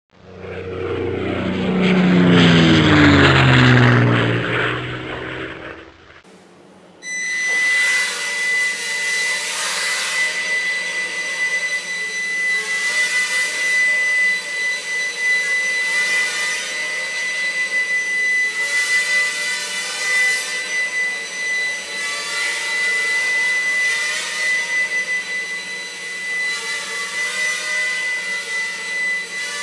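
A swelling whoosh with sliding pitch for about the first six seconds, then it cuts away. From about seven seconds, the eight small motors and rotors of a Walkera QR Spacewalker octocopter give a steady high whine over a buzzing hum that rises and falls as the throttle changes in flight.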